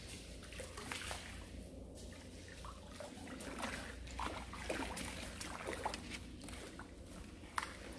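A hooked fish splashing at the pond surface, water sloshing in short, irregular splashes.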